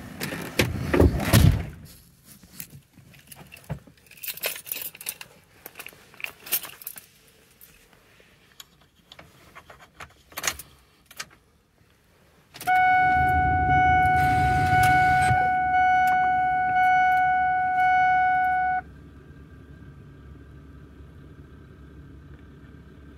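Keys jingle and rattle with scattered clicks for about twelve seconds; then the key goes to on in a Ford F-250 with the 7.3 Powerstroke diesel and the dash warning chime dings about once a second for some six seconds over a low hum. After the chime stops a faint steady hum remains, with the wait-to-start light on while the glow plugs heat before a cold start.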